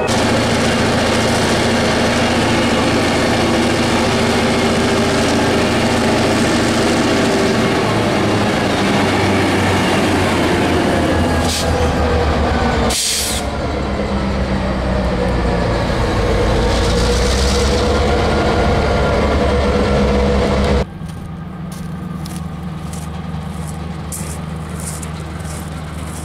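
Diesel locomotive engine running loud and steady as it works past close by, with a short hiss about halfway through. Near the end the sound drops abruptly to the quieter rumble of freight cars rolling away, with wheels clicking over the rail joints.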